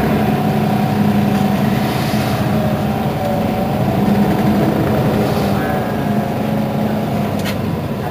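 Mercedes-Benz Citaro city bus standing at a stop with its engine idling: a steady hum with a slight waver, and a brief click near the end.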